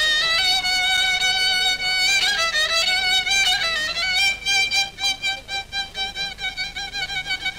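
Instrumental passage in maqam Saba on a bowed fiddle, with no singing. It plays a melodic line of held, gliding notes, then breaks into quicker repeated notes from about four seconds in.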